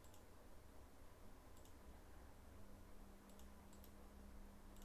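Several faint computer mouse clicks, spaced irregularly, over a steady low electrical hum.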